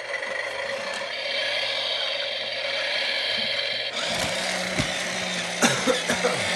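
Toy CAT excavator's battery-powered electric motors whirring through its plastic gears as it is worked from its wired remote; the pitch and pattern shift about four seconds in as a different movement takes over.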